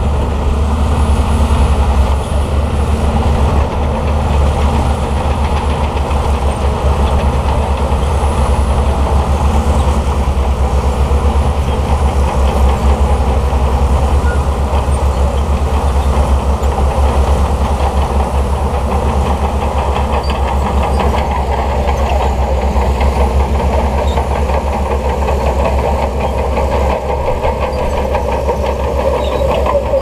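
Shantui crawler bulldozer's diesel engine running steadily under load while pushing sand, with the dense, rapid clatter of its steel tracks.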